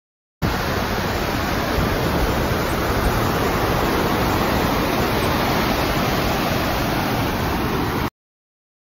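Waterfall rushing through a rock gorge: a steady, even wash of water noise that starts abruptly and cuts off abruptly near the end.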